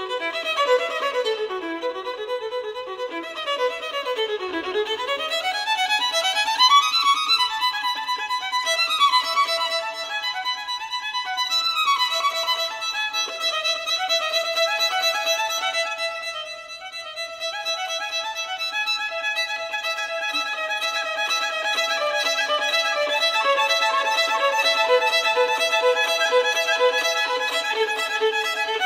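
Violin music, several notes sounding at once, with long slides down and back up in pitch in the first half, then steadier held notes.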